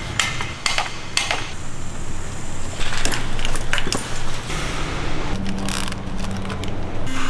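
Metal clinks and knocks of hand tools and parts as mechanics work under a car raised on a lift to remove its engine. There are several sharp clinks in the first second and a half and more around three to four seconds in, over a steady low hum.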